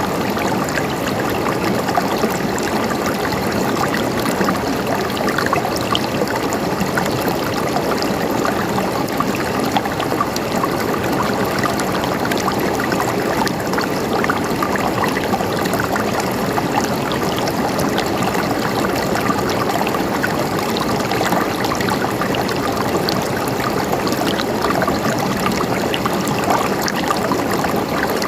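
River water running over rocks: a steady, even rush with small splashes and trickles.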